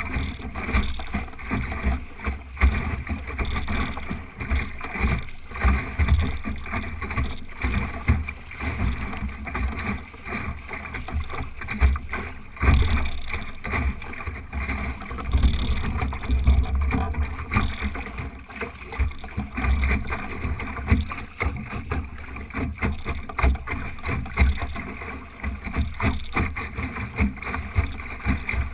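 Water rushing and splashing along the hull of an Optimist sailing dinghy under way, with wind buffeting the microphone in uneven gusts.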